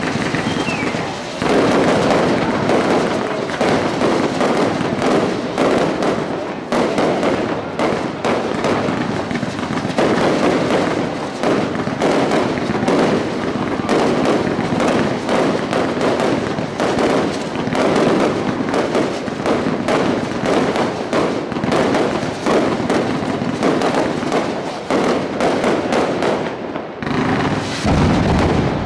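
Fireworks display at close range: a dense, unbroken barrage of bangs and crackling, many per second, as fountains of sparks and aerial shells go off together.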